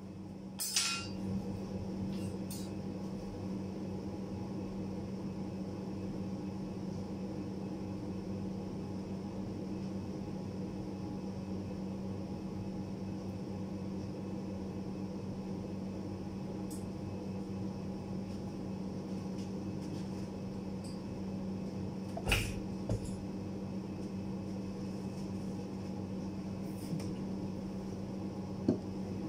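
Steady low mechanical hum of a running workshop machine, with a few sharp knocks and clicks of hand work at the bench: a small cluster about a second in, one about three-quarters through, and two near the end.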